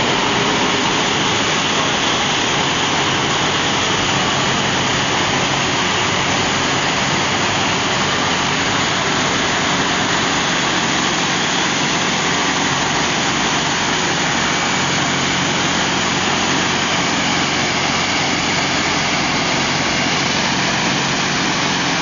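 Waste plastic film crushing and washing line running: a steady, loud machinery noise with a constant low hum underneath.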